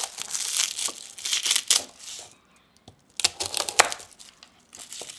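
Chef's knife cutting a head of garlic on a plastic cutting board: crackling of the dry papery skin and sharp clicks of the blade on the board. It comes in two spells with a short pause about two seconds in.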